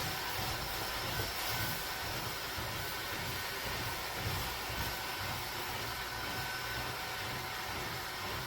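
Cordless handheld battery vacuum running steadily, its motor giving a constant whine over the rush of suction air.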